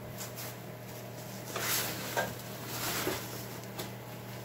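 A few light metallic clinks and scrapes of a spark plug socket and extension being worked on a Polaris RZR 170's engine to loosen the spark plug, over a steady low hum.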